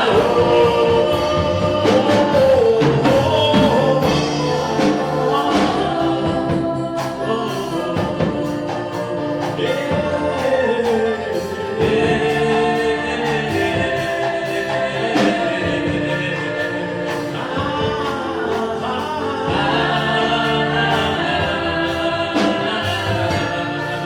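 Gospel song: a choir singing over band accompaniment with a steady beat.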